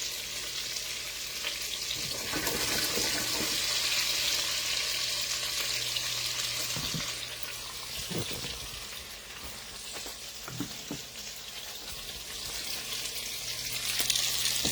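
Lamb chops frying in garlic butter in a pan, a steady sizzling hiss that is louder in the first half, eases off in the middle and builds again near the end. A few light knocks, like a utensil against the pan, come about halfway through.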